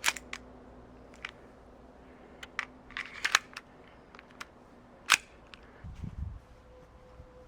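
CO2-powered 1911-style airgun pistol firing single shots: three sharp pops, at the start, about three seconds in and about five seconds in, with lighter clicks of the action between them. A low rumble comes in near the end.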